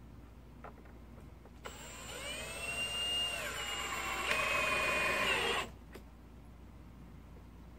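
Power drill driving a screw into a wooden stair tread. The motor whines up to speed about two seconds in, pauses briefly and picks up again at a slightly different pitch, gets louder as the screw goes in, and stops suddenly about four seconds later.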